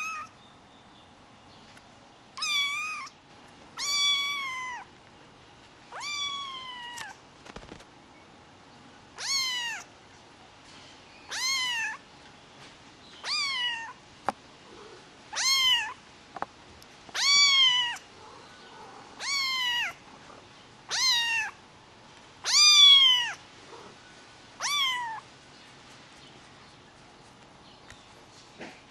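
Highland Lynx kitten meowing over and over: about a dozen high, thin meows roughly every two seconds, each dropping in pitch at its end, stopping a few seconds before the end.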